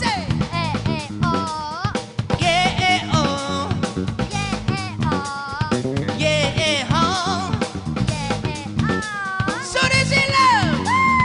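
Live band playing: drum kit and bass keep a steady beat while the male lead vocalist sings long wordless vocal phrases with wide vibrato, leading an "ah-ah-oh" call-and-response.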